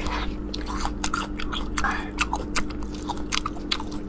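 A person chewing a seasoning-coated chicken leg roll close to the microphone, with many short crunches and wet mouth clicks.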